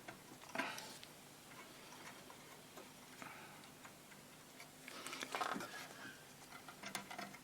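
Faint scattered clicks and two brief soft rustles of a thin hookup wire and small tools being handled on a workbench.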